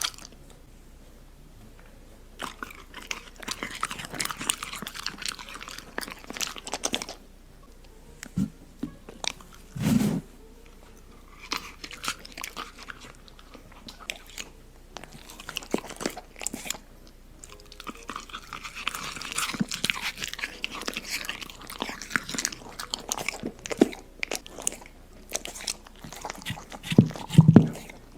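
A dog eating, crunching and chewing its food in irregular bursts with short pauses between them. There are two louder low thumps, one about ten seconds in and one near the end.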